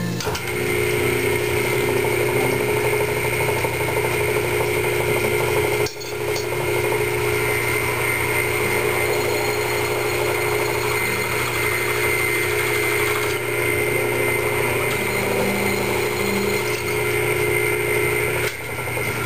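Vertical milling machine running steadily with a constant whine. The sound dips briefly about six seconds in and stops about a second before the end.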